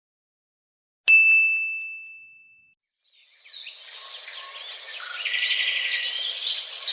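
A single bright bell ding about a second in, one high ringing tone that fades away. Then a chorus of birds chirping and tweeting fades in and carries on.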